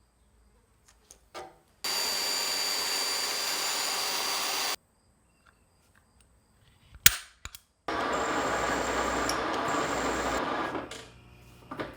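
A power tool runs for about three seconds and stops, then a sharp click, then the tool runs again for about three seconds and winds down.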